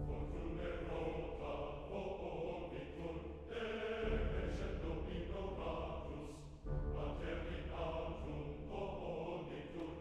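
Background music: a choir singing slow, sustained phrases.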